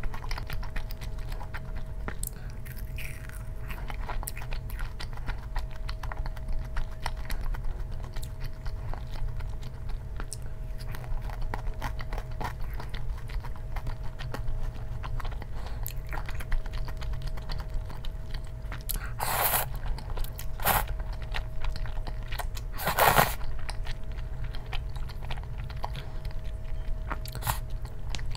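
Close-up chewing and biting of food, with crunching, over a steady low hum; a few louder crunches or knocks come about two-thirds of the way in.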